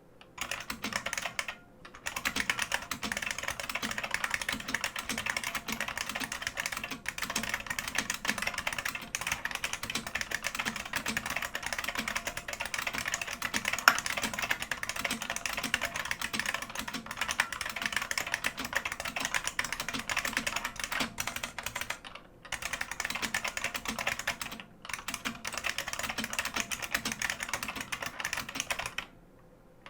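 Bolt-modded IBM Model M Space Saving Keyboard with buckling-spring switches being typed on fast and continuously: a dense clatter of keystrokes, broken by a few short pauses, with one louder key strike about halfway through.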